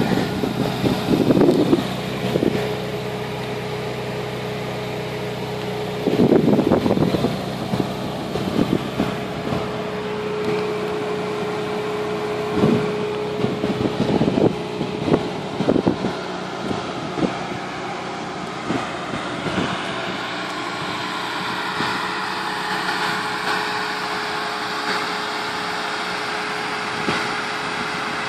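Ferrari 458 Italia's mid-mounted 4.5-litre V8 idling steadily, with a few short louder bursts over it.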